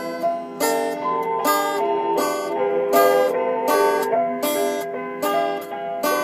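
Music on a plucked string instrument: chords strummed about every three quarters of a second over ringing, held notes.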